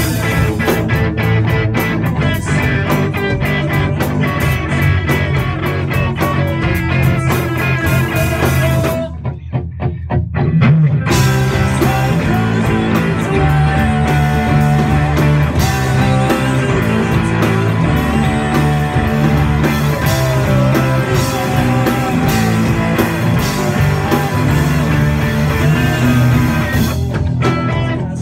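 Rock band playing live: two electric guitars, electric bass and a drum kit. About nine seconds in the band drops to a thinner, quieter break for about two seconds, then the full band comes back in.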